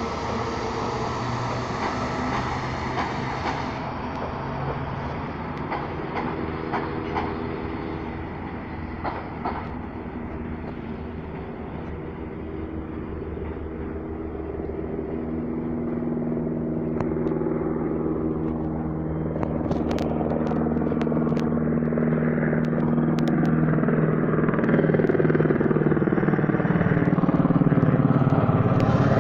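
A regional electric multiple-unit train pulling away from the station and fading. Then a helicopter's engine and rotor grow steadily louder as it approaches overhead, the pitch bending near the end as it passes close.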